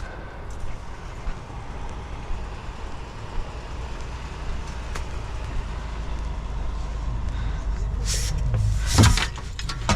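Steady low rumble of an idling vehicle with scattered small knocks, then one loud metallic clunk about nine seconds in as large scrap metal pieces are loaded into a van.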